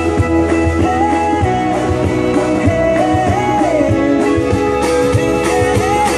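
Rock-style music with guitar and a singing voice.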